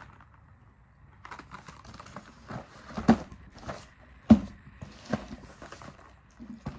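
Small cardboard boxes of espresso capsules being taken out of a shipping carton and handled: scattered taps, knocks and rustling, with two sharper knocks about three and four seconds in.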